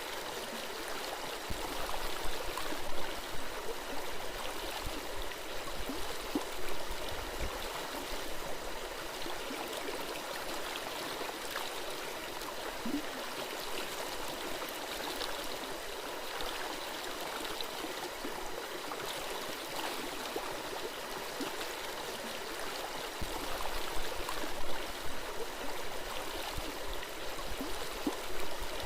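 Forest stream flowing and gurgling over rocks, a steady rush of water, with two stretches of deeper low rumble, one early and one near the end.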